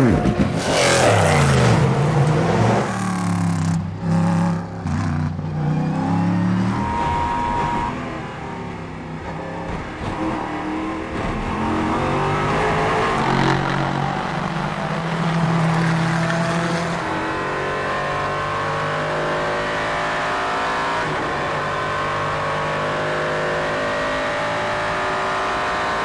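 Endurance race cars' V8 engines at racing speed. A car goes by with a falling pitch right at the start, then engines rev up and down through gear changes. Near the end comes one long acceleration with the pitch slowly rising.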